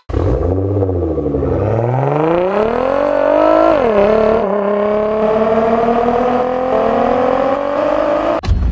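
Nissan R35 GT-R's twin-turbo V6 accelerating hard through a catless Fi Exhaust 101 mm system with valved muffler. The revs sag briefly, climb, drop at an upshift about four seconds in, then climb steadily again until the sound cuts off shortly before the end.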